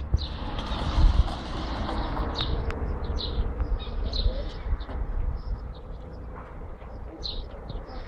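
Small birds chirping in short, high calls again and again, over a low street rumble that swells for the first few seconds.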